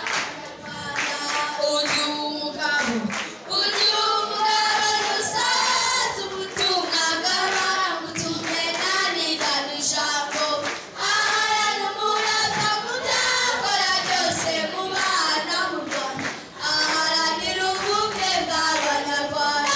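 A group of many voices singing a song together, without a break.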